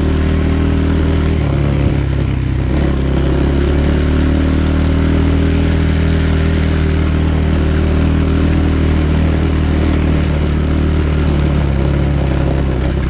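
Dirt bike engine running steadily as the bike is ridden along a dirt track. Its note changes about a second and a half in, then holds steady.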